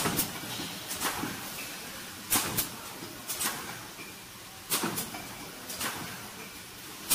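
Fully automatic servo-driven screen printing machine running through its print cycle: a steady mechanical hum with sharp clacks, mostly in pairs about every two and a half seconds.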